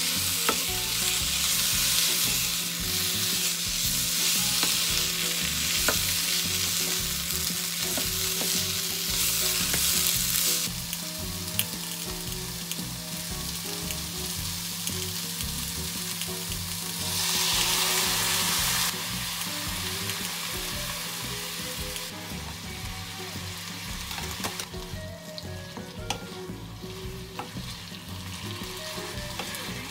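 Food sizzling in a hot frying pan as it is stir-fried, with occasional light clicks. The sizzle is loudest for the first ten seconds or so, dies down, flares up briefly again about two-thirds of the way through, and then settles to a lower frying hiss.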